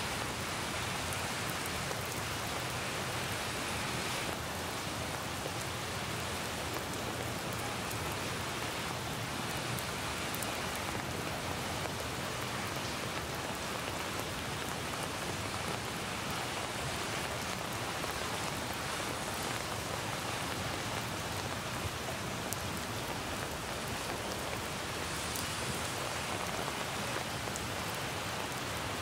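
Steady rain falling on leaves and pavement, an even hiss with scattered drop ticks. The recorded rain is mixed with added rain sound effects.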